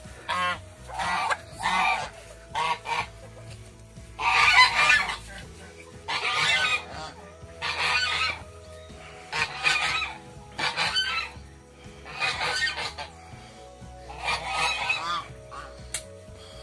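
Domestic geese honking repeatedly, a call every second or two, the loudest about four and a half seconds in.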